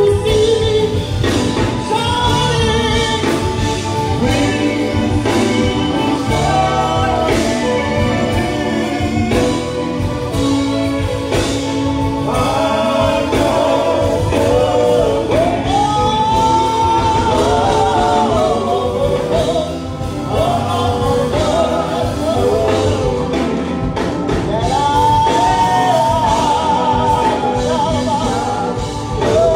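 Live gospel singing by a vocal group with instrumental accompaniment, the sung melody wavering with vibrato over a steady beat.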